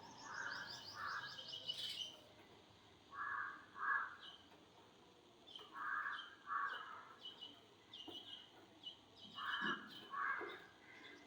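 Sparrows chirping in quick runs of high notes, with a lower, harsher two-note bird call repeating about every three seconds.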